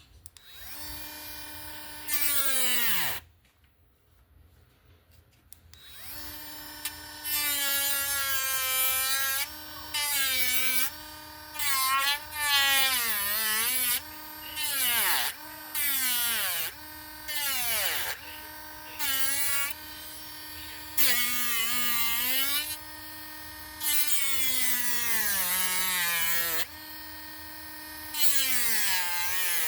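Hand-held Dremel rotary tool cutting into a wooden lure, its motor tone sagging in pitch each time the bit bites the wood, with louder rasping bursts of cutting. It runs briefly, spins down and stops, then starts again a few seconds later and keeps cutting in repeated bursts.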